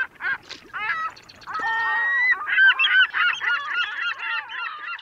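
A flock of birds calling over one another: many short, repeated, rising-and-falling calls that crowd together from about a second in.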